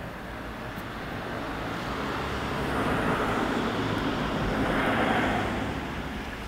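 A road vehicle passing by: a rushing noise that swells about two seconds in and fades away near the end, over a steady low traffic hum.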